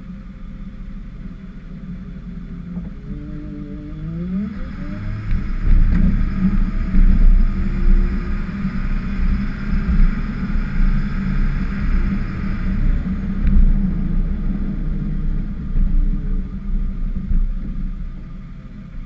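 Ford F-550 plow truck's engine revving up about four seconds in and then pulling hard under load for several seconds before easing off, with the rushing scrape of the plow blade pushing snow.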